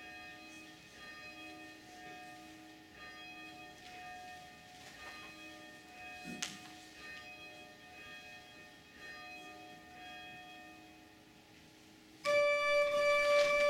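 A single church bell tolling slowly and faintly, each stroke ringing on into the next, with one sharp click about halfway through. Near the end a pipe organ comes in loudly with a sustained chord.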